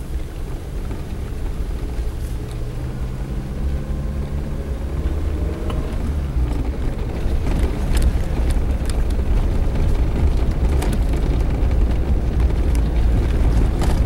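Suzuki Jimny running in gear on a rough dirt road, heard from inside the cab. The engine note rises over the first few seconds as it speeds up and climbs, then becomes a heavier rumble. Scattered knocks and rattles come from the body and suspension over the ruts.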